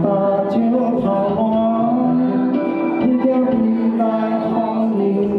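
A man singing into a handheld microphone, holding long wavering notes over backing music.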